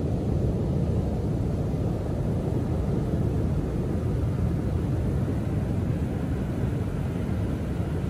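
Rough ocean surf still churned up after a winter storm: a steady low rumble of breaking waves, with the hiss of foamy wash running up the sand growing a little from about three seconds in.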